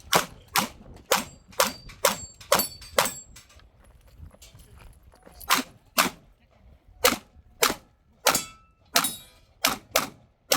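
Rapid pistol fire from a 9mm Glock 45: strings of shots about half a second apart, with a pause of about two seconds near the middle. A brief metallic ringing follows a few of the shots.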